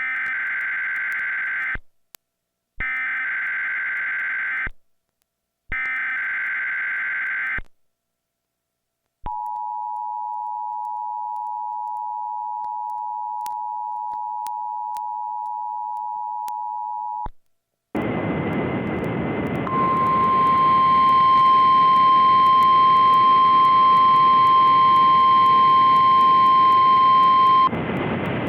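Emergency Alert System broadcast: three bursts of warbling SAME header data tones, each about two seconds long with short gaps, then the two-tone EAS attention signal held steady for about eight seconds. After a brief pause, AM radio static hisses in, and about two seconds later the loud steady 1050 Hz NOAA Weather Radio alert tone sounds over it for about eight seconds, cutting off near the end while the static continues.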